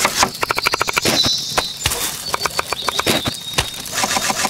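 Fast chopping with a cleaver on a wooden cutting board, sharp knocks in quick runs of several strikes a second as it cuts through an onion and then a pepper.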